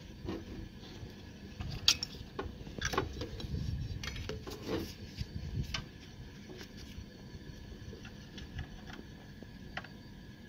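Wiring being handled inside a solar inverter's metal case: plastic connectors and sleeved cables clicking and rubbing. One sharp click comes about two seconds in, followed by a few more clicks and rustling that settle after about six seconds.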